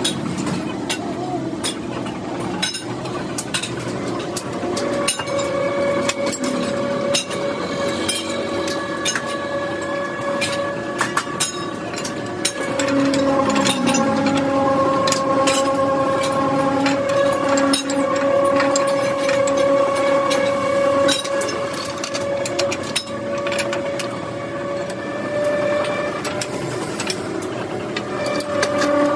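Metal clanks and knocks as the heavy steel door of a hose-vulcanizing autoclave is closed and its rim clamps and bolts are tightened by hand. Underneath runs a steady machinery hum with a whine, which gets louder about halfway through.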